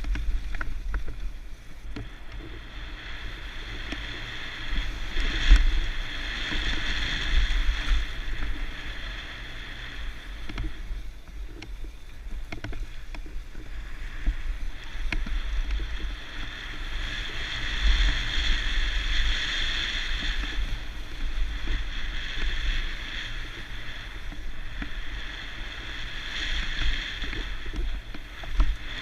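Mountain bike riding down a bike-park trail: wind rumbling on the camera microphone and tyres rolling over dirt and gravel, swelling and easing with speed, with scattered knocks and rattles from bumps.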